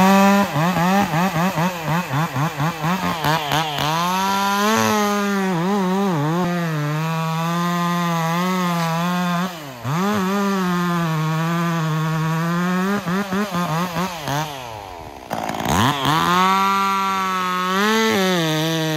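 Two-stroke chainsaw running at high revs while cutting wood, its pitch sagging under load and climbing again as the cut eases. The operator blips the throttle a couple of seconds in. The engine briefly drops toward idle and revs back up twice, about halfway through and again near the three-quarter mark.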